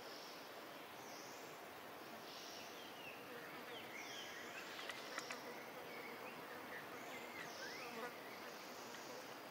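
Faint outdoor insect buzzing, coming in short high bursts about once a second, with a scatter of faint high chirps through the middle.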